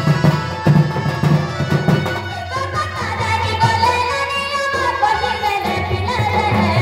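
Live folk music: a two-headed barrel drum beaten by hand, joined from about two and a half seconds in by a voice singing a wavering melody over the drumming.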